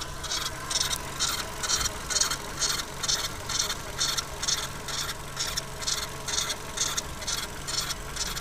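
VW Golf 4 1.6 BFQ engine running, with a rhythmic high-pitched squeak, about three a second, coming from the timing belt area over the steady engine hum.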